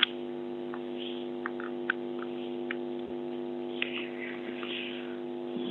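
Steady electrical buzzing hum on an open telephone line, with a few faint clicks.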